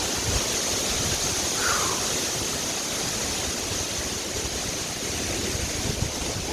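Hurricane wind blowing hard through trees, a steady rush that sounds like a freight train, with gusts buffeting the microphone.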